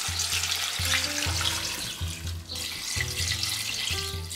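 Water poured from a pitcher into a stainless steel pressure-cooker pot over vegetable scraps, a steady splashing hiss with a short break about two and a half seconds in. Background music plays underneath.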